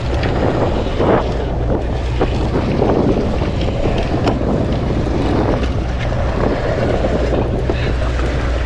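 Steady low hum of a sportfishing boat's engine, with wind buffeting the microphone and water washing along the hull.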